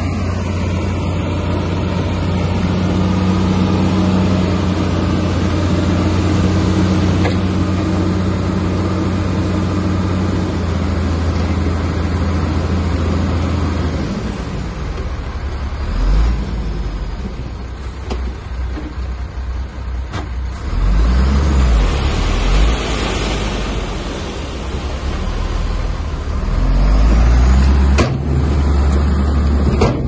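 A bulldozer's diesel engine working, with a steady low drone for about the first half, then the engine note drops and rises and falls in several low swells as the load changes.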